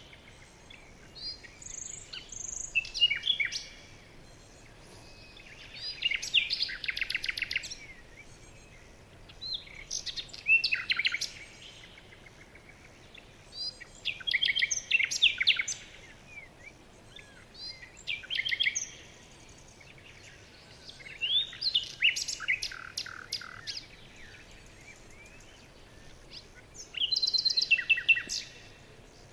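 A songbird singing: a short phrase of quick chirps, trills and sweeps, repeated about every four seconds, seven times in all.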